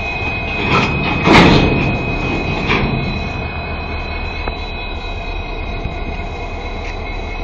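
Twin WDG-4 (EMD GT46MAC) diesel locomotives idling with a steady low rumble. Three short bursts of noise come between about one and three seconds in, the middle one the loudest.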